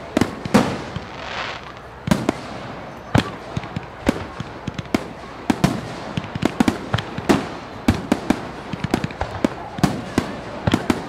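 Aerial fireworks shells bursting, with sharp bangs at irregular intervals, several a second in places, amid crackling. A brief hiss comes about a second in.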